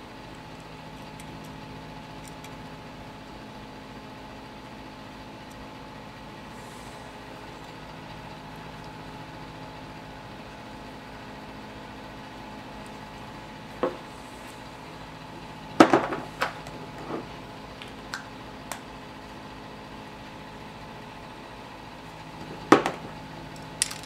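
Small hand tools being handled at a workbench: scattered sharp clicks and knocks as things are picked up and set down, a cluster of them about two-thirds of the way through and one loud knock near the end. A steady machine hum runs underneath.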